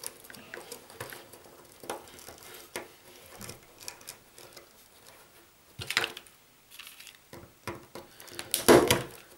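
Small clicks and rustles of thin telephone wires being handled and pushed into the plastic IDC terminals of a BT78A junction box. A sharper snap comes about six seconds in, and the loudest one near the end, as a punch-down tool seats a wire in a terminal.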